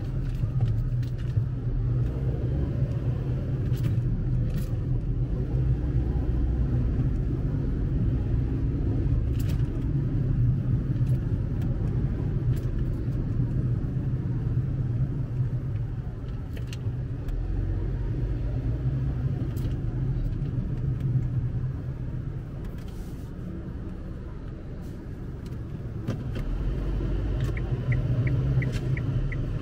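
Low, steady rumble of a car's engine and road noise heard from inside the cabin in slow traffic, with scattered light clicks and a quick run of faint ticks near the end.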